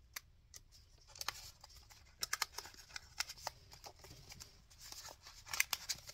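Plastic binder sleeves and a card being handled and slid into a pocket, crinkling and rustling with clusters of sharp clicks and snaps.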